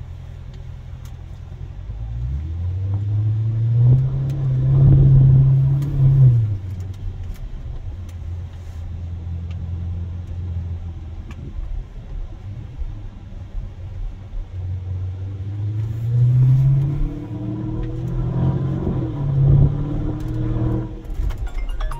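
Lamborghini Urus's twin-turbo V8, heard from inside the cabin while driving. The engine note climbs under acceleration from about two seconds in and drops back sharply near six seconds. It then runs steady at cruising speed and climbs again about fifteen seconds in, with another dip and rise near the end.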